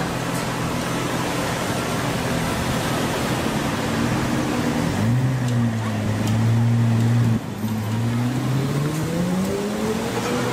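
A Pagani Zonda's V12 engine runs steadily at low revs. About halfway through the revs rise and hold as the car pulls away, then dip for a moment like a gear change and climb again.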